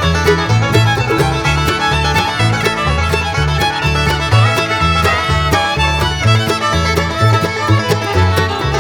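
Upbeat bluegrass background music with fiddle and a steady bass line.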